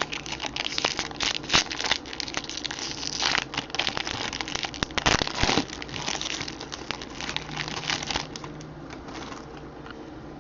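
Foil wrapper of a baseball card pack crinkling and crackling as it is handled and torn open and the cards are handled. It dies down about eight seconds in.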